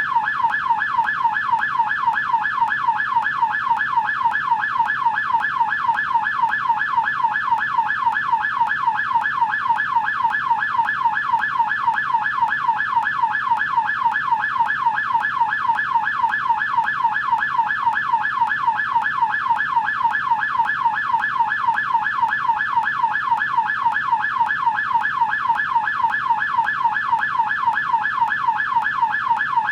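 American police siren on the yelp tone: a fast warble sweeping up and down in pitch a few times a second, steady and unbroken.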